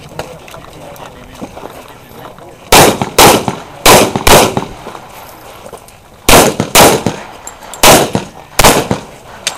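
Eight pistol shots from a single-stack pistol, fired as four quick pairs about half a second apart. There is a pause of about two seconds after the second pair. Each shot is loud and echoes off the range.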